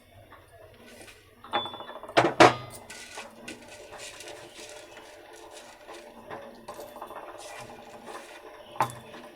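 Clinks, scrapes and knocks of a metal mortar and pestle (imam dasta) as whole spices for kadha are put in and crushed, with a few sharper knocks about two seconds in and again near the end.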